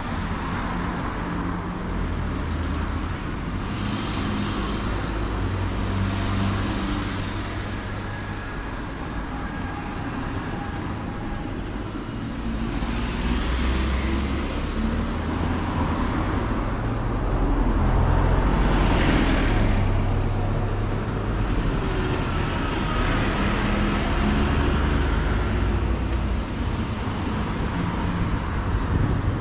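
Road traffic going by: a steady rumble of engines, with the hiss of cars and trucks swelling and fading as several pass close, the nearest about two-thirds of the way through.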